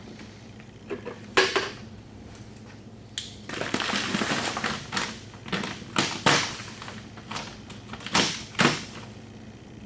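Small plastic bucket knocking and scraping as loose salt is scooped from a feed sack: a couple of sharp knocks early, a second of pouring hiss, then crunchy scoops and clatters, several in pairs.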